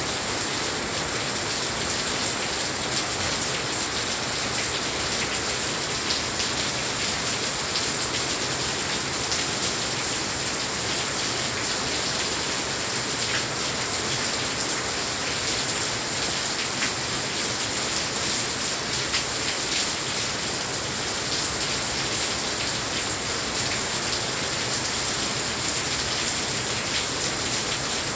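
Heavy rain falling steadily, drops striking a glass balcony railing: an even hiss scattered with many tiny drop ticks.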